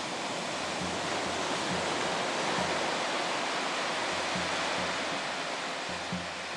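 Steady rushing noise of surf washing onto a sandy beach, with soft low bumps here and there.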